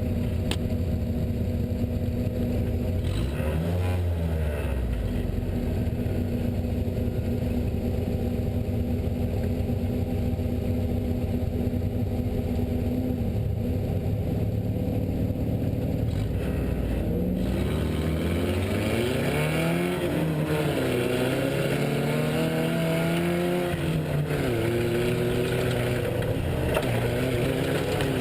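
Off-road race truck engine running, holding a fairly steady note for the first half, then revving up and down repeatedly through the second half.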